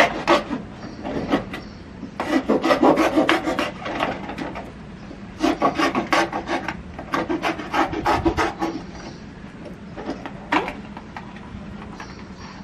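A knife sawing through a cardboard Tetra Pak milk carton to cut it open into a food dish, in several bursts of quick back-and-forth rasping strokes.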